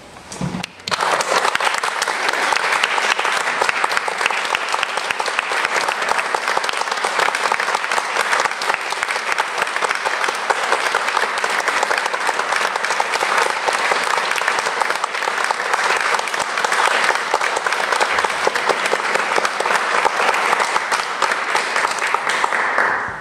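Audience applauding steadily, breaking out about a second in and starting to die away at the very end.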